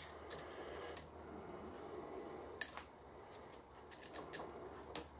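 Light metal clicks and clinks of small parts being handled and fitted by hand in a milling machine's head, with the sharpest click about two and a half seconds in and a few quick ones near the end.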